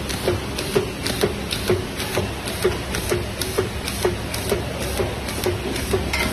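Automatic tube labelling machine running, with a steady hum and a regular click about twice a second as the tubes are fed through.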